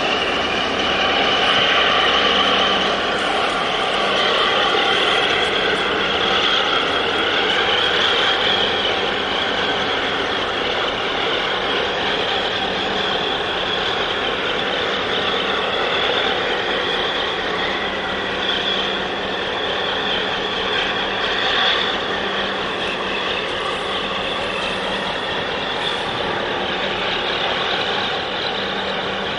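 Steady engine drone with a rushing hiss over a low hum, from the big container ship and its assisting tugboats working close by.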